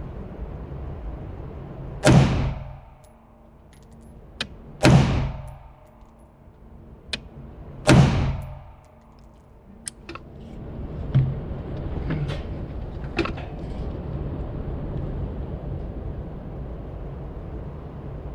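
Three AR-15 rifle shots in .223/5.56, fired about three seconds apart, each a sharp crack with a short ringing tail, followed by several fainter clicks and knocks.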